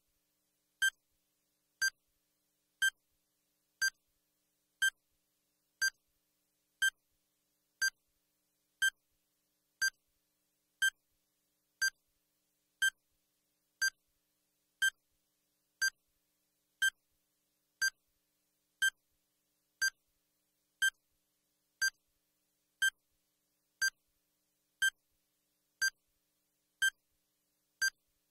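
Countdown timer sound effect giving one short, high beep every second as it counts down the seconds.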